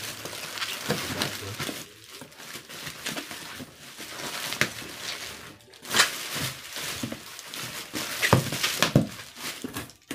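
Plastic bubble wrap rustling and crinkling as it is handled and pulled out of a cardboard box, with sharp crackles, the loudest about six seconds in and again near the end.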